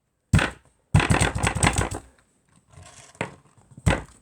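Slime being squeezed and poked by hand: a sharp pop, then a quick run of about ten wet clicks and pops, then softer crackling and two more pops near the end.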